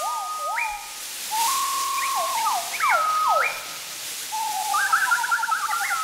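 Several high whistles overlapping, holding notes and sliding steeply up and down in pitch, with a quick warbling run about five seconds in, over a soft hissing rustle.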